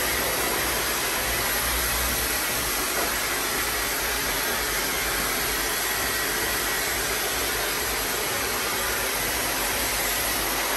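Hand-held hair dryer blowing steadily on wet hair to pre-dry it: an even rush of air with a faint steady high whine.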